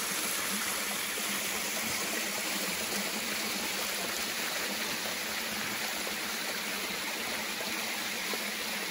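Spring water splashing steadily down a small artificial waterfall, spilling over a log into a creek.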